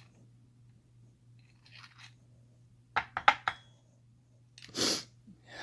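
Small metal padlock parts clinking: a quick cluster of four or five sharp clicks about three seconds in, as the pins come out of the lock's core, then a brief rush of noise near the end.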